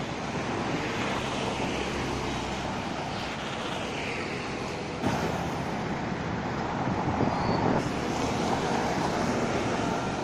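Road traffic passing, a steady rush of tyres and engines, with a single knock about halfway through.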